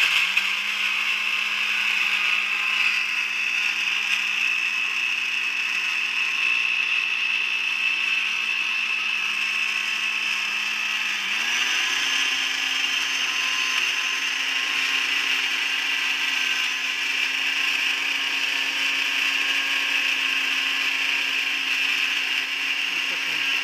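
Electric countertop blender running steadily, chopping onion and garlic in its glass jar. Its motor hum steps up in pitch about eleven seconds in.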